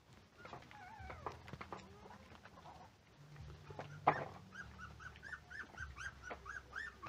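Puppies whining, then a quick run of short, high whimpering yelps about four a second, with one sharp knock about four seconds in.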